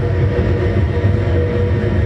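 Live band playing loud, steady droning noise music: a heavy low rumble under a few sustained held tones, with no clear beat.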